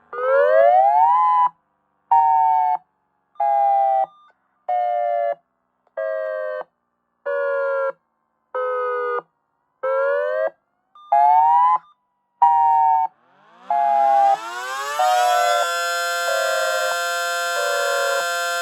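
Electronic warning siren sounding a pulsed wail: tone bursts about a second long with short gaps, the pitch sweeping up, sliding down over several pulses, then rising again. About 13 seconds in, a mechanical siren spins up on its attack signal, rising in pitch to a steady chord under the electronic pulses.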